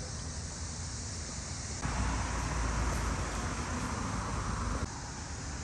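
Steady background hiss with a low rumble, which gets louder and fuller about two seconds in and drops back abruptly near the end.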